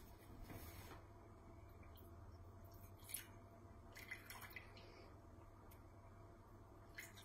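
Faint drips and trickles of water poured slowly from a plastic bottle into a glass measuring jug, a few soft ones scattered through an otherwise near-silent stretch.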